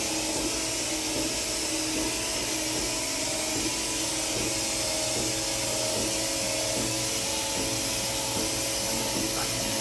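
Steady hum and hiss of an idling INDEX MS22C CNC multi-spindle screw machine: a strong even hiss over several steady hum tones, with a few faint small knocks.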